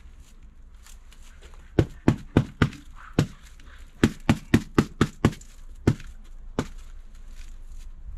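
A run of about a dozen sharp knocks and clacks: four in quick succession about two seconds in, a quick run of six around four to five seconds, and two more spaced out near six and six and a half seconds.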